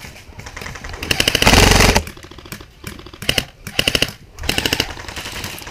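Airsoft rifle firing in full-auto: one long rapid burst about a second in, the loudest part, then three short bursts in quick succession.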